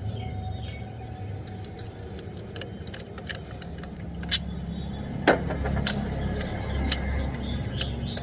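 Metal hand tools clicking and clinking irregularly against the engine while unbolting the intake manifold, the sharpest click about five seconds in, over a steady low rumble.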